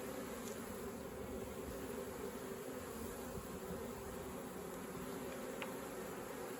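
Steady hum of a colony of honeybees buzzing around an opened hive, with a faint click near the end.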